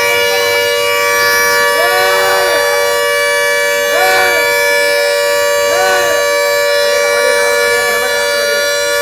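A vehicle horn held down without a break, sounding several steady tones at once. Over it, a short rising-and-falling cry comes about every two seconds.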